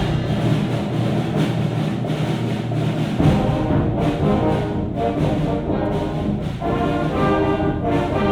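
Orchestral music with brass and timpani, with a heavy low hit about three seconds in.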